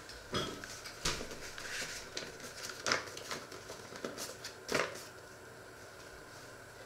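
Kitchen items being handled: a quick, irregular series of knocks and clicks mixed with paper rustling, lasting about five seconds, then only a faint steady room hum.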